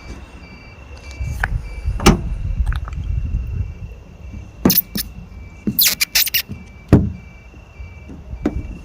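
Firework bangs and crackles, one sharp report after another, with a rapid run of cracks about six seconds in. Road-traffic rumble lies underneath, with a faint steady electronic beeping.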